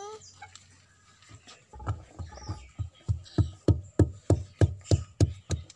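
Wooden pestle pounding lovi fruit in a deep wooden mortar, the first stage of making lovi dosi. The strokes start a little under two seconds in and become steady thuds at about three a second.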